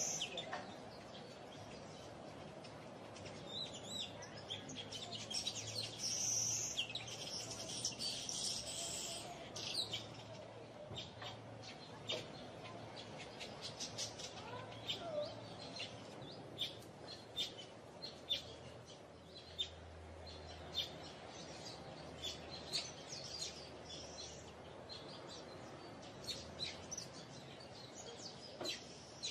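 Wild birds chirping and calling: many short, high chirps, densest in the first ten seconds and scattered through the rest, over a faint steady low hum.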